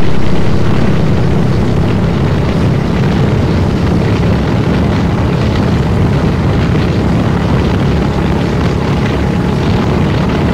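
Motorcycle on the move, its engine and the wind rushing over the microphone making a loud, steady noise that is heaviest in the low end.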